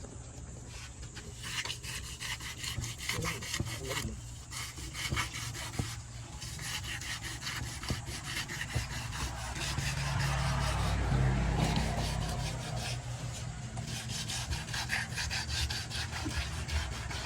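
A knife scraping a large catla carp in fast, repeated rasping strokes.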